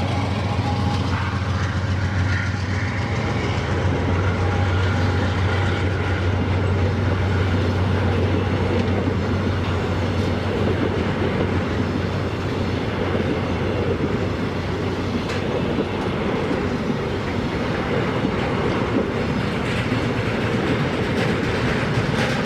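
Freight train passing, its cars rolling steadily over the rails with a clickety-clack. A low engine hum is strong at first and fades about halfway through.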